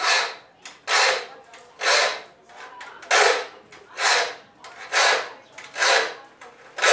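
Hand file rasping across the teeth of a Peugeot rip saw in short, even strokes about once a second, about eight strokes in all: the saw being sharpened, two file strokes to each tooth.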